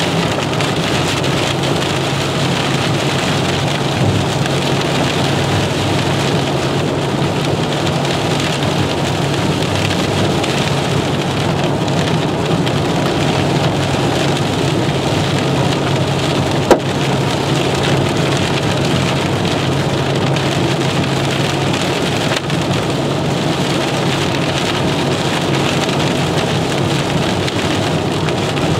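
Heavy rain and hail drumming steadily on a vehicle's roof and cracked windshield, heard from inside, with a steady low hum underneath. One sharp, loud crack stands out about two-thirds of the way through, the strike of a single large stone.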